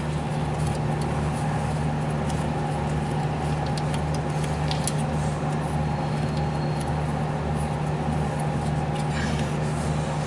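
Steady low mechanical hum of a running machine with a slight pulsing throb, and a few faint light clicks of the brake caliper bolts being threaded in by hand.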